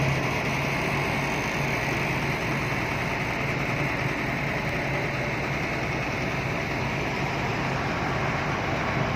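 Heavy diesel machinery engine running steadily with a low throb.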